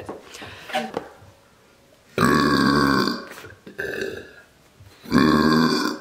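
A woman burping into the neck of a latex balloon held at her lips, forcing the burped air in to inflate it: two long, loud burps about three seconds apart, with a softer sound between them.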